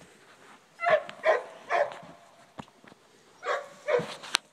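A dog barking: three quick barks about a second in, then two more near the end, followed by a sharp click.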